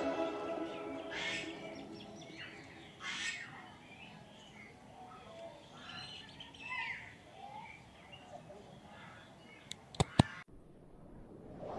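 Several birds chirping and calling in scattered short notes. Near the end come a few sharp clicks, then the sound cuts off abruptly.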